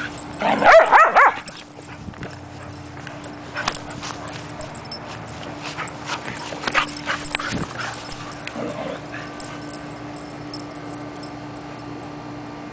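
Dogs at rough play: a loud burst of high, wavering dog vocalizing lasting about a second, starting half a second in, then quieter short sounds of play that fade out after about nine seconds.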